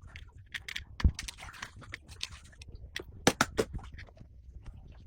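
Small sharp clicks, taps and light scraping of metal tools working on small watch parts. There is a heavier knock about a second in and a quick run of clicks about three and a half seconds in.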